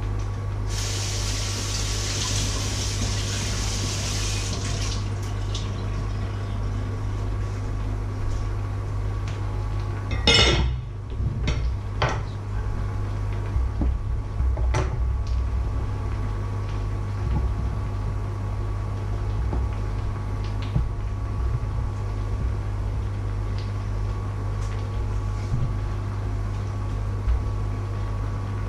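A kitchen tap runs for about four seconds near the start. About ten seconds in comes one loud clatter, then a few sharp knocks of a knife on a wooden cutting board as bell peppers are cut, all over a steady low hum.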